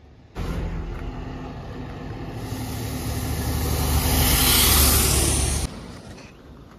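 A passenger bus's diesel engine running as the bus comes up the road and passes close by, with engine and tyre noise growing louder. It starts abruptly about half a second in and cuts off suddenly near the end.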